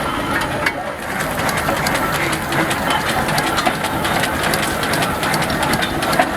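Steam traction engine running, a steady mechanical clatter of many small clicks over steam noise.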